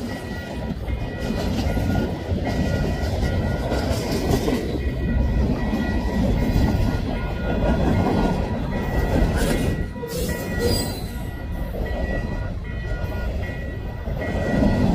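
Canadian Pacific freight cars rolling steadily past: steel wheels rumbling and clicking over the rail joints, with a thin high ringing tone that comes and goes and a short lull about ten seconds in.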